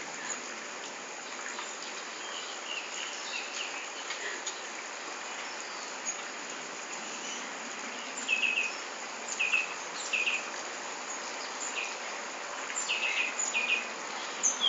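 Steady drone of outdoor insects, with short high chirps in small groups of two or three coming in from about eight seconds in.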